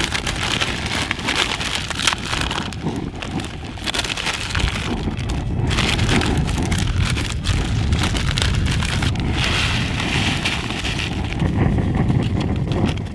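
Plastic instant-noodle packet crinkling and rustling as it is handled and emptied into a metal camping mug, over a steady low rumble of wind on the microphone.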